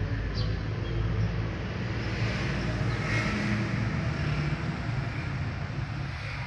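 Steady low rumbling background noise with an even hiss over it, swelling slightly about halfway through.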